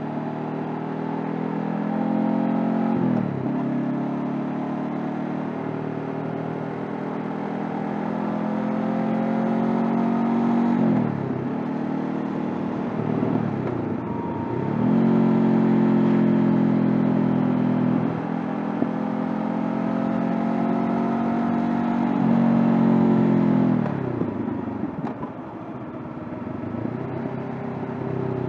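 Honda CB500F's parallel-twin engine heard from the rider's seat while riding. The engine note climbs steadily and then drops sharply about five times, as the rider changes gear through the bends.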